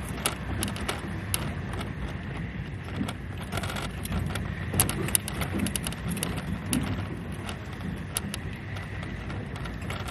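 Car cabin noise while driving: a steady low rumble of engine and road, with many small scattered clicks and rattles.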